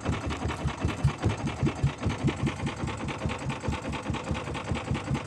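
Outrigger fishing boat's engine puttering steadily, about five even low thumps a second.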